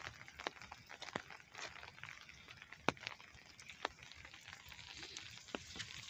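Light rain falling on wet pavement: a faint, even patter with scattered sharp clicks at irregular intervals.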